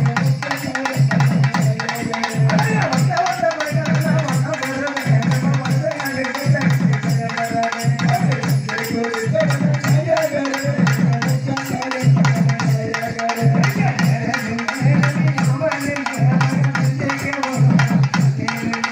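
Tamil folk music for oyilattam dancing: a drum beats a steady, fast repeating rhythm with small brass hand cymbals (jalra) clashing in time, and a man's voice sings over it through a loudspeaker.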